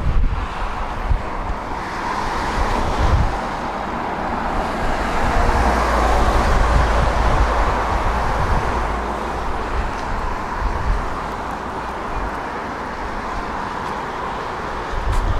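Road traffic: cars passing on the street, with the tyre noise swelling about halfway through and then fading, over a low rumble.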